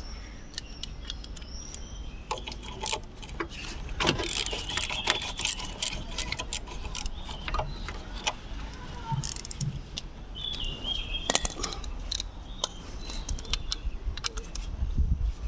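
Irregular metallic clicks, clinks and knocks of hand tools and small metal parts being handled, with a couple of short high chirps about four seconds and ten seconds in.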